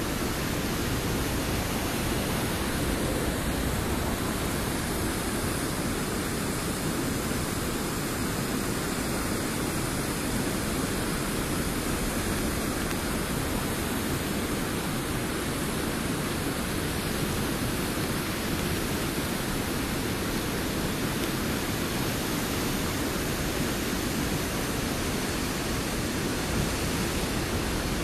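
Water pouring over a partly frozen waterfall through gaps in its ice, a steady rushing noise.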